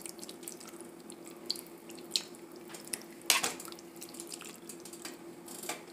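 Wet splashing and spoon clicks as chicken is stirred into a pan of simmering broth and egg noodles, the loudest splash about three seconds in, over a steady faint hum.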